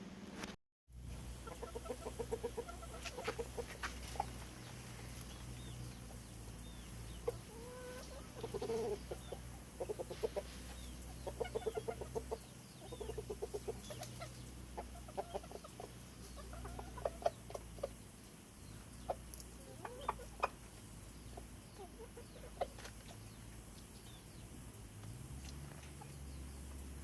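Chickens clucking in repeated runs of short, quick pulses, over a steady low hum.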